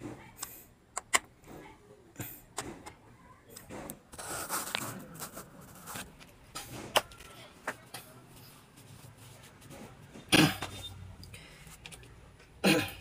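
Small clicks and taps of a tool and fingers handling parts on an opened laptop's mainboard and plastic chassis, with a scraping rustle a few seconds in and two louder knocks near the end.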